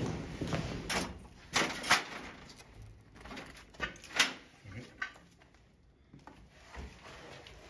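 Several sharp knocks and clunks in a small room, loudest about two seconds and about four seconds in, quietening after about five seconds.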